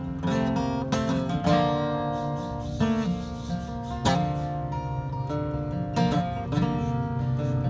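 Steel-string acoustic guitar played solo: picked notes and chords over a steady bass line.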